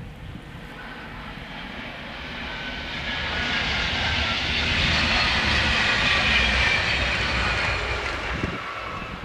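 A distant fast-moving vehicle passing: a rushing roar with a low rumble beneath it, swelling to its loudest about six seconds in and then fading.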